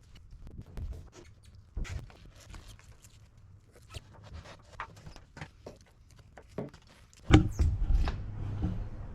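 Scattered light scratching and clicking of hands working at a boat's hull, then one loud knock about seven seconds in, followed by a low rumble.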